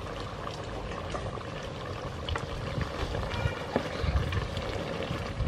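Chicken curry bubbling in a metal pot, stirred with a wooden spoon that knocks and scrapes against the pot a few seconds in.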